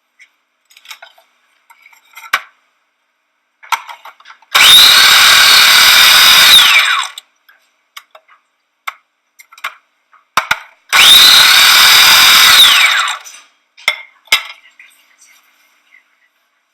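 Electric food chopper run twice, each time for about two seconds, its motor whine rising quickly at the start and falling as it spins down. Light clicks and knocks come between the two runs.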